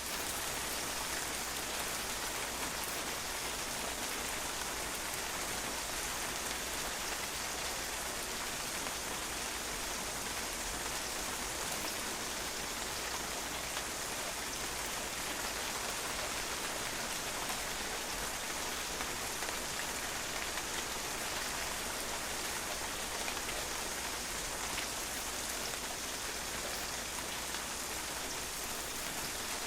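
Steady rain falling and drops pattering on a patio, an even continuous hiss with no change in strength.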